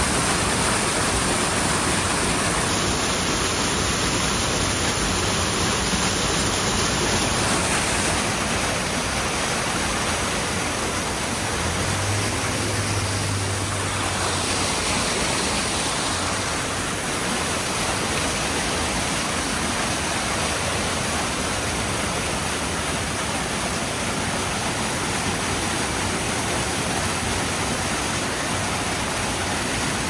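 A small waterfall pouring over rock, a steady, loud rush of falling water heard close up.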